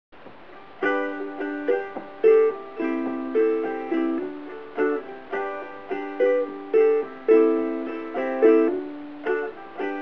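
Covered Bridge redwood and myrtle tenor ukulele played solo in a classic-rock style: chords struck in a steady rhythm, roughly two accented strikes a second, starting about a second in.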